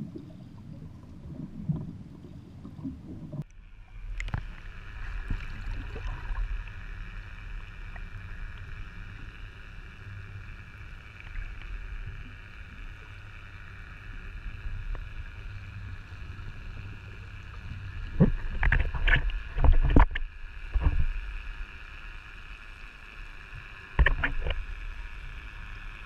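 Sound recorded underwater: a muffled low rumble of water with a steady high hum over it, broken by loud sloshing knocks about two-thirds of the way through and again near the end.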